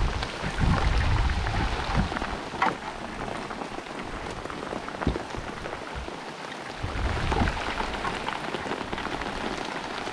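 Rain falling in a sun shower: a steady hiss of rain with many scattered, sharper hits of single drops.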